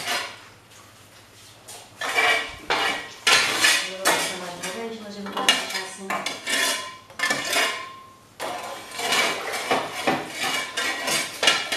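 Long-handled metal scraper dragged and knocked over the brick floor of a wood-fired bread oven, raking out ash and embers before baking. It scrapes and clatters in many irregular strokes from about two seconds in, after a quieter start.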